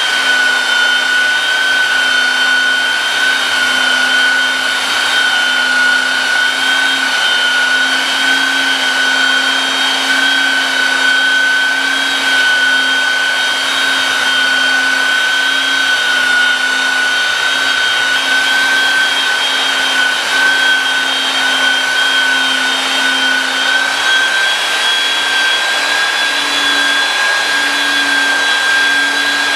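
Handheld belt sander running steadily as its sanding belt works across a flat wooden board, a steady high whine over the hiss of the belt on the wood.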